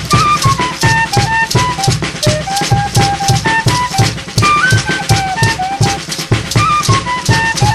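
Dance music playing: a melody of short held notes over a steady drum beat with percussion.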